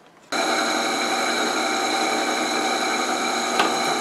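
Drill press running steadily while drilling through a piece of flat steel stock clamped in a vise. There is a single brief click about three and a half seconds in.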